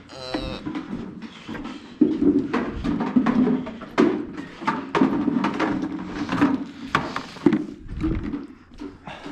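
Calves sucking milk from teat-fitted buckets: irregular slurping and sucking with knocks of the plastic buckets as they butt and pull at the teats, getting busier about two seconds in. A brief animal call is heard at the start.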